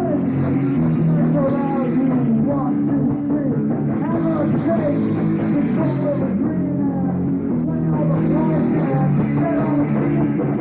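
Rock band playing a punk rock song live, a stretch with no singing, full band with bending lead notes over sustained chords.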